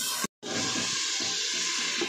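Onions frying in oil in an aluminium pressure cooker: a steady, even sizzle. It starts suddenly after a brief dropout about a third of a second in.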